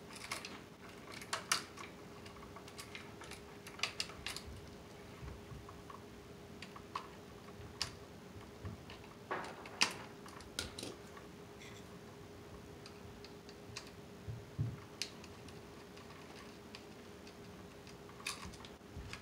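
Irregular small clicks and snips of hand tools working electrical wire at a receptacle: wire strippers trimming the conductors' over-stripped ends and the wires being handled and bent onto the terminals. A faint steady hum underneath.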